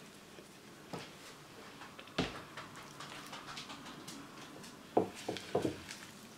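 A spatula folding thick crab dip in a bowl: quiet stirring and scraping, with a few light knocks of the spatula against the bowl, the sharpest about two seconds in and a small cluster near the end.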